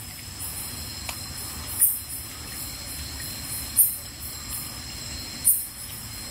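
Night insects calling: a steady high drone with a short, sharp, very high chirp repeating about every two seconds.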